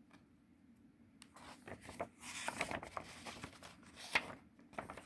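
Paper rustling as a page of a picture book is turned: a run of crinkles and short flicks starting about a second in, the sharpest about four seconds in.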